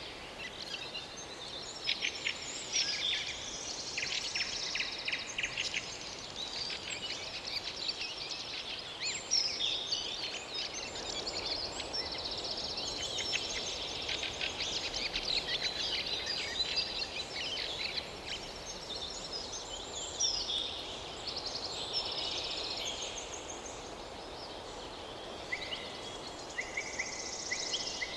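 Several small birds singing and calling at once, a busy mix of chirps and trills over a steady background hiss.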